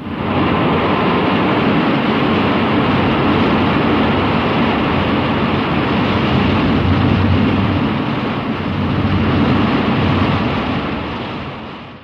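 A loud, steady rushing-noise sound effect that starts abruptly and fades out over the last second.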